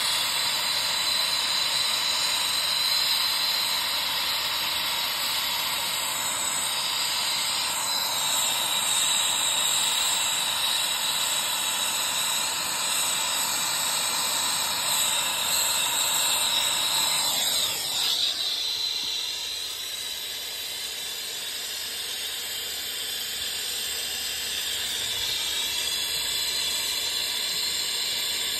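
Torch flame hissing steadily while a copper refrigerant line is brazed to an AC condenser's brass service valve. About two-thirds of the way through, the sound sweeps downward and drops to a softer hiss.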